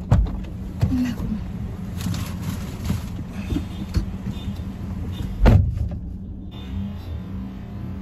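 Car door slammed shut hard from inside the cabin: one heavy thud about five and a half seconds in, after a sharp click of the door opening at the start and some shuffling and knocks as she gets out.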